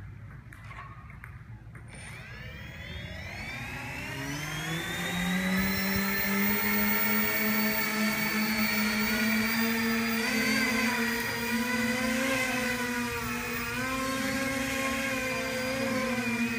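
Electric motors and propellers of a small trirotor tiltwing drone spinning up about two seconds in, rising in pitch into a steady whine made of several tones. The pitch wavers up and down in the second half as the throttle changes.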